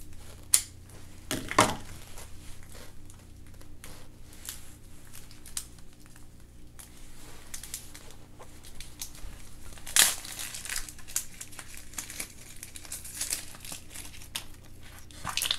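Plastic toy packaging crinkling and rustling, with scattered small clicks and taps, as a surprise egg is opened and its figure unwrapped.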